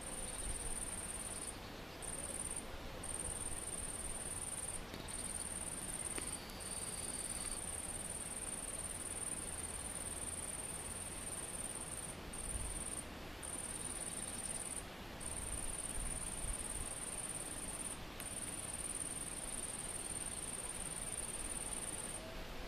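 A high, steady insect song, broken by several brief pauses.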